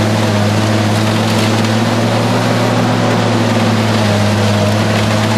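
Mobile scrap shredder running under load: its diesel engine drones steadily while a car body in the hopper is crushed and torn, with crunching and cracking of metal over the drone.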